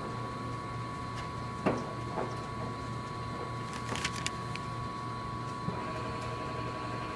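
Stanko 1A983 engine lathe running with a steady hum and a constant high whine, with a few sharp clicks and knocks, once singly, then a quick cluster about four seconds in.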